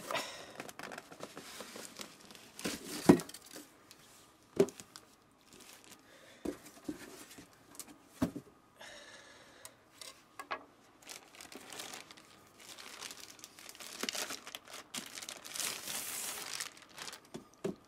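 Packaging being handled and unwrapped: on-and-off crinkling and rustling of wrapping, with a few sharp knocks in between.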